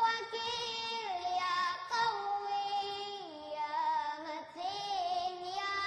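Music: a single high melody line, sung without clear words, with vibrato on long held notes that slide from one pitch to the next.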